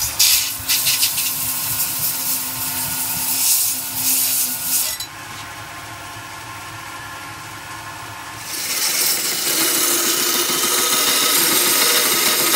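Belt grinder running, with the steel of an old meat cleaver pressed against the moving belt: loud grinding for about five seconds, the machine running on its own for a few seconds, then grinding again from about eight seconds in.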